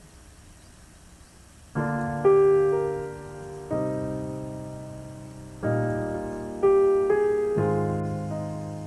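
Background piano music: after a quiet start, soft chords begin about two seconds in, each struck and left to ring and fade before the next.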